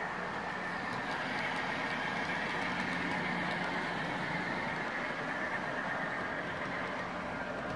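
Sound-equipped model locomotive's engine sound playing steadily as the model passenger train runs along the layout.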